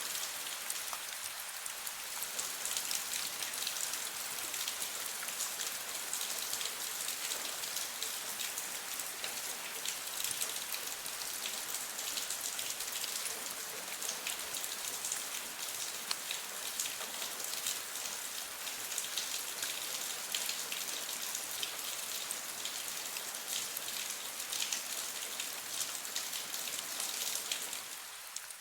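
Steady rain falling, a dense hiss of many fine drop ticks, dipping briefly in level near the end.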